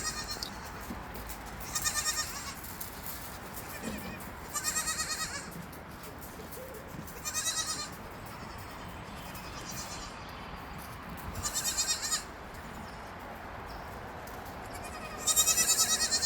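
A goat bleating over and over, about six high, quavering bleats a few seconds apart.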